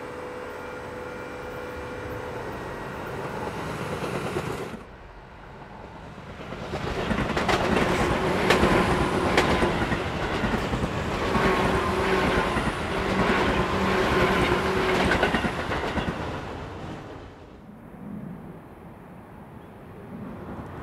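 Tobu Railway 10000 series electric commuter train running by, its wheels clacking over rail joints with steady tones under the noise; loudest in the middle, then fading. Near the end a quieter train sound takes over.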